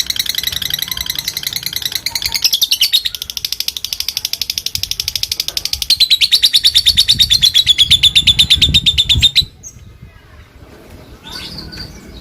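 Lovebird giving a long, rapid chattering call (the Indonesian 'ngekek panjang') of fast, evenly repeated high notes, which stops abruptly with about three seconds to go; a few weaker chirps follow near the end.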